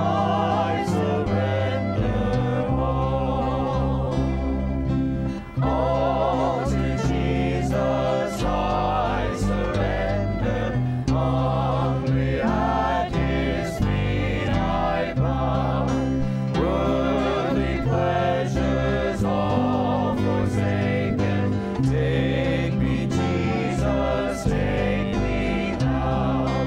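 Men and women singing a gospel hymn together, accompanied by acoustic guitars.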